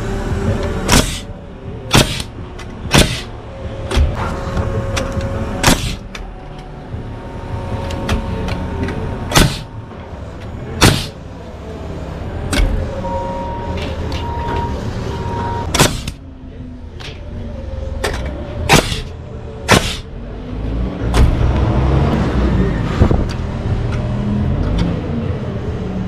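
Nailing on a wood-framing job: sharp impacts at irregular intervals, from about a second to several seconds apart, over a steady low rumble.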